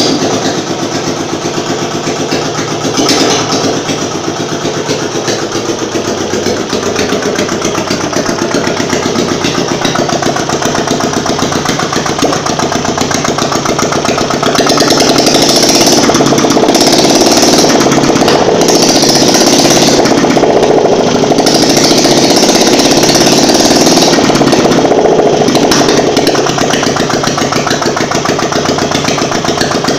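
Royal Enfield Classic UCE single-cylinder engine running with no silencer fitted, just started after an engine rebuild. It runs steadily, then louder from about halfway through, easing back a little near the end.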